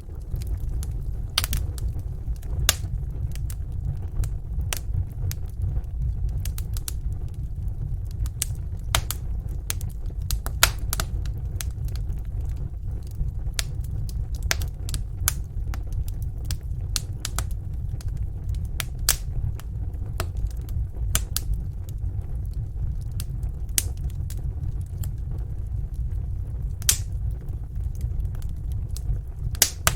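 Wood fire burning in a fireplace, with irregular sharp crackles and pops over a steady low rumble of the flames.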